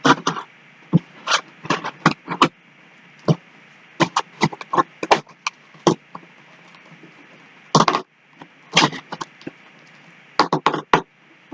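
Packaging being handled and pulled open to free a plush toy: irregular sharp crinkles and crackles, some in quick clusters, over a faint steady hiss.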